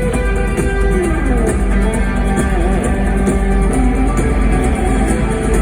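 Guitar music over a steady bass, with a melody line that slides up and down in pitch.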